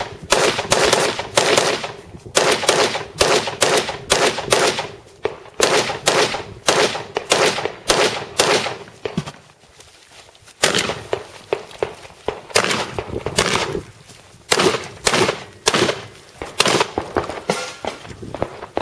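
A fast string of gunshots, about two to three a second, with a break of about a second near the middle; the firing stops shortly before the end.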